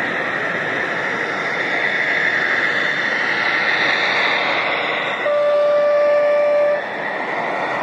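A model train's horn gives one steady blast about a second and a half long, a little past the middle, over a continuous background of hall noise and the train running by.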